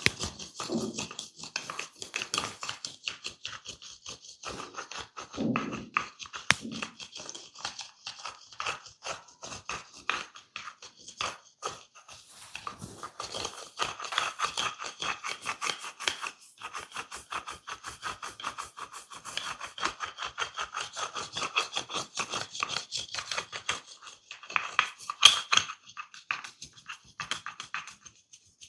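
Hands massaging hair and skin, a steady run of quick scratching and rubbing strokes, many to the second, with one louder, sharper stroke near the end.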